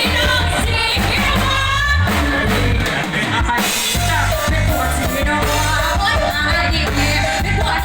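Thai pop song with a woman singing over a band with a steady drum beat.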